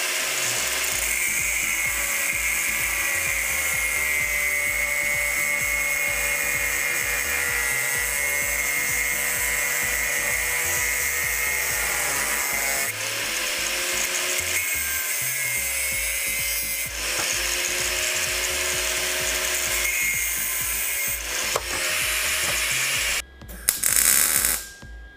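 Angle grinder cutting through a steel seat bracket, a steady whine that wavers and dips briefly as the disc is pressed into the metal. Near the end the grinder stops and there is a short loud burst of welding crackle as the bracket is tack-welded. Background music with a beat runs underneath.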